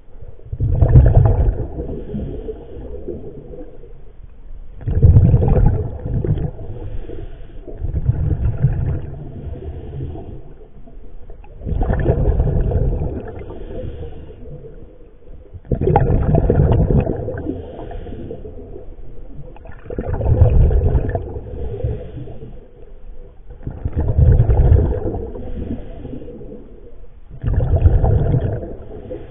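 Underwater breathing of a diver on scuba: exhaled bubbles from the regulator gurgle and rumble past the camera in bursts about every four seconds, with quieter spells between breaths.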